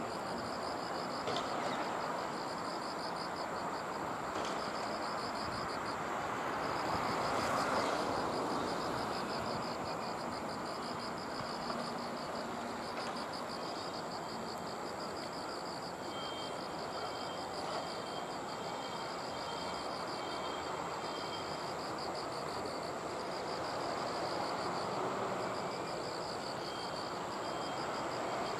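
Tobu 8000 series electric train cars rolling slowly past with a steady running rumble that swells briefly about eight seconds in. Insects chirp in a fast, even pulse throughout, with a thin steady high trill above it.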